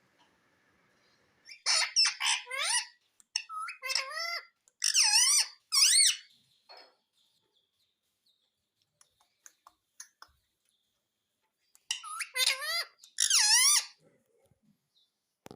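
Pet parrot calling in two bursts of high, sliding calls: a run of several calls in the first few seconds and another cluster near the end, with a few faint clicks in the quiet between.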